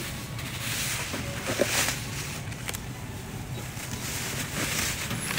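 Brown paper grocery bag crinkling and rustling as a plastic tray of gimbap is slid in and the bag is handled, in two spells, over a steady low hum.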